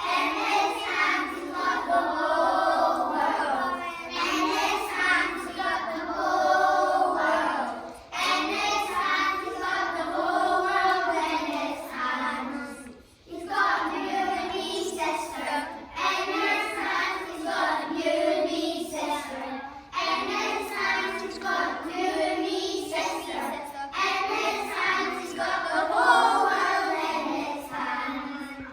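A group of children singing a song together, with short pauses between phrases, the clearest about 13 seconds in.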